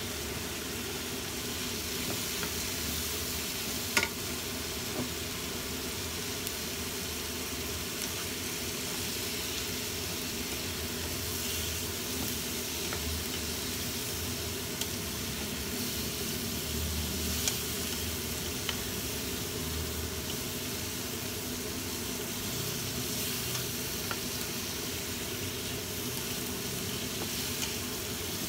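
Squid rings, tomato and onion sizzling in oil in a nonstick wok, stirred with a wooden spatula that clicks against the pan now and then, most sharply about four seconds in.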